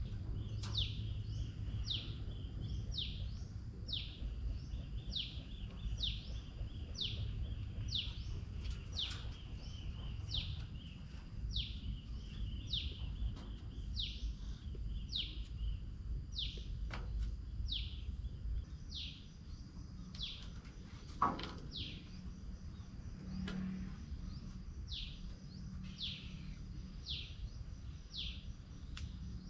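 A bird calling over and over, a short high falling note about once a second, over a steady low background rumble. A single sharp knock about two-thirds of the way through.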